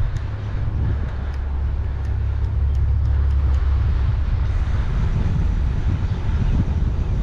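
Wind buffeting a helmet-mounted GoPro's microphone during a bicycle ride: a steady deep rumble with tyre and road noise over it, growing a little louder about halfway through. A few faint ticks come in the first half.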